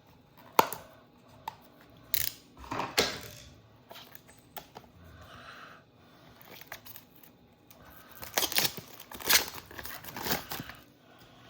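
A trading card pack being opened by hand: sharp clicks and handling noises, then a run of tearing and crinkling wrapper about two thirds of the way through.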